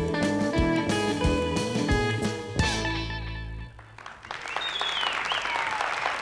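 Rautalanka-style instrumental band of electric guitars and drums playing the last bars of a tune, ending on a held chord that stops about three and a half seconds in. The audience then applauds.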